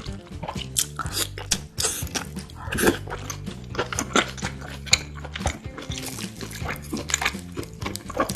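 Close-miked eating: a rapid run of crisp crunching bites and chewing over steady background music.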